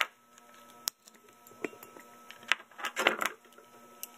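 Sharp clicks and cracks of a small hard yellow plastic piece being pressed down and cracked by hand against a wooden workbench. Single clicks come at the start and about a second in, then a quick cluster of cracks about three seconds in.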